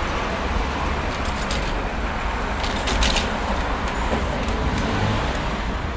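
Busy city road traffic: a steady, dense rumble of engines and tyres from many passing vehicles, with a few brief clicks about halfway through.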